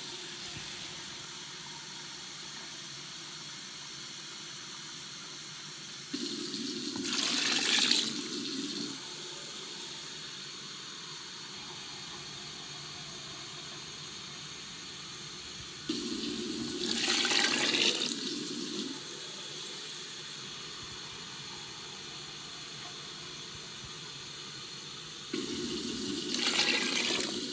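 Kitchen tap running steadily into a plastic container, with three louder stretches of splashing water about ten seconds apart.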